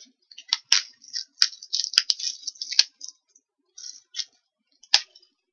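Fingers and fingernails picking at and handling a small cardboard tarot card box. It makes a run of scratchy crackling with several sharp clicks.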